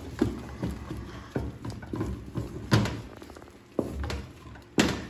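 Wooden cooking stick stirring and pressing thick, stiff ugali in a metal pot, with irregular knocks and thuds as the stick strikes the pot and the dough.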